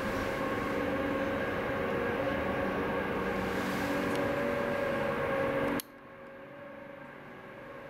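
Steady hum with a faint held whine inside a 1990 KONE M hydraulic elevator car as it travels up. About six seconds in the sound drops suddenly to a quieter hum.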